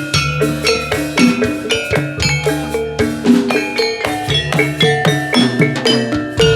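Javanese gamelan music accompanying a jathilan dance: struck metal keyed instruments play a quick, steady melodic pattern over drums.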